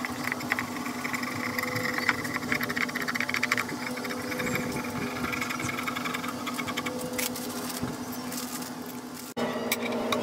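Steel ball screw spun by hand through its ball nut, giving a fast, even rattle of the recirculating balls over a steady low machine hum. The sound changes abruptly near the end.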